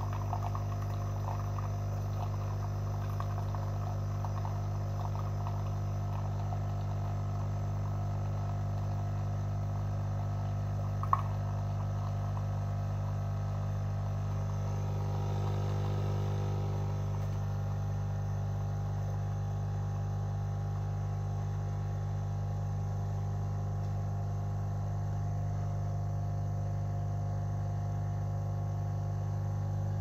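Bosch Tassimo pod coffee machine's pump humming steadily while it brews, coffee streaming into the mug. A single sharp click about eleven seconds in.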